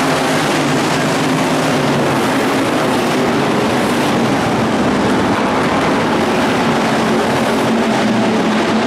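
A pack of IMCA Hobby Stock race cars running hard around a dirt oval: many engines at once, making a loud, steady, layered drone.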